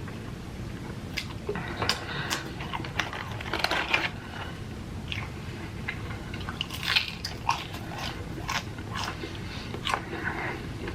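Close-miked biting and chewing of crunchy food, with irregular wet crunches and clicks.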